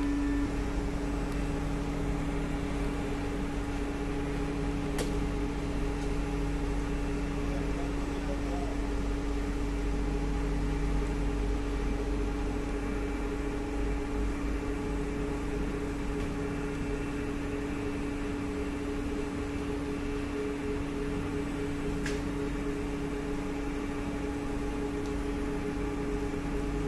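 Steady hum of a C151B MRT train's air-conditioning and electrical equipment as it stands with its doors open, a low rumble with two fixed tones in it. Two faint clicks, about five seconds in and again near the end.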